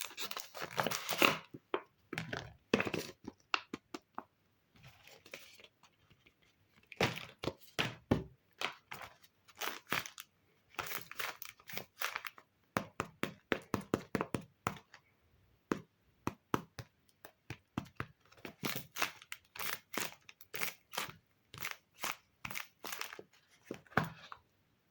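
Paper being handled: irregular crinkling and short crackles in clusters, with a couple of quieter pauses.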